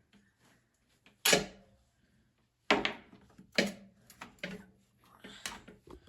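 Hand tools and metal parts knocking and clinking as a bolt is worked out of a vintage motorcycle's exhaust mounting: about five sharp knocks at uneven intervals with short ringing, the loudest about a second in.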